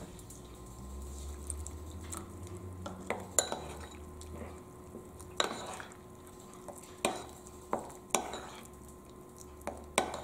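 Metal spoon stirring a thick flour batter in a ceramic bowl, knocking sharply against the bowl about seven times from about three seconds in.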